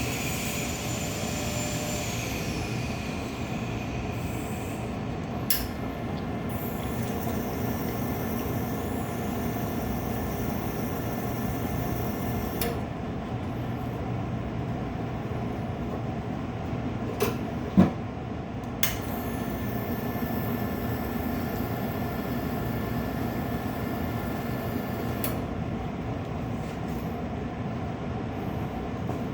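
A steady mechanical hum and rumble, broken by a few sharp clicks and knocks, the loudest cluster about two-thirds of the way through.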